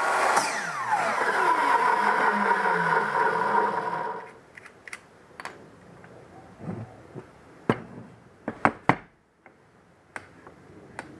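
A power tool runs loudly for about four seconds, its pitch falling at first, then stops. A few sharp knocks and clicks follow.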